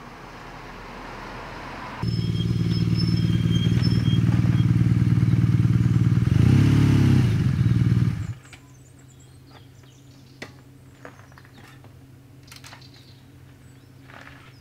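BMW R nineT's boxer twin engine running loud and steady, with a brief dip and rise in pitch about two-thirds of the way through. It comes in suddenly after a rising rush of noise and cuts off suddenly about eight seconds in. A quieter steady low hum with scattered clicks follows.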